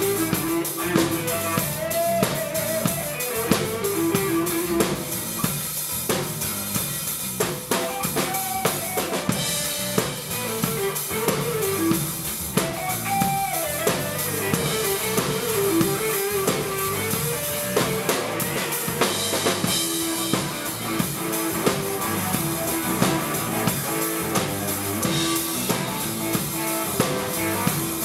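Rock band playing an instrumental passage: a full drum kit keeps a driving beat of kick, snare and cymbals under a wandering melodic lead line.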